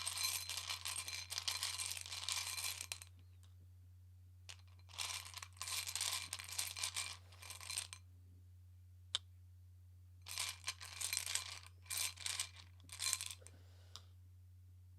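Tarot cards being shuffled by hand: three stretches of crackly card shuffling, a few seconds each, with a single sharp click between the second and third.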